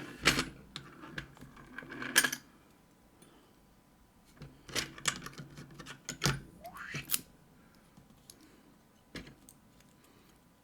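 Light metal clicks and clinks of small tools and lock parts being handled while taking apart an Assa Guideline lock cylinder, in scattered groups with a brief scrape near the middle.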